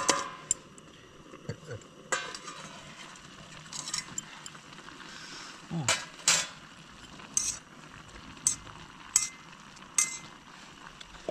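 Metal utensil clinking and scraping against a camping cooking pot, about eight separate sharp clinks spread a second or so apart, some with a short ring, over a faint steady hiss.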